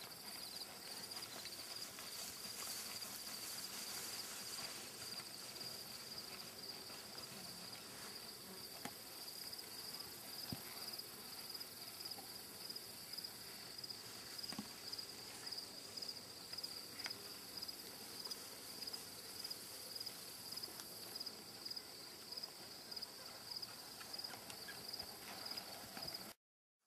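Steady outdoor insect chorus, a high pulsing trill like crickets, that cuts off abruptly near the end.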